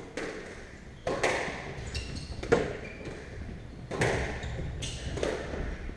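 Squash rally: the rubber ball struck by rackets and hitting the court walls, sharp echoing smacks about once every second or so, around five in all, the loudest about two and a half seconds in.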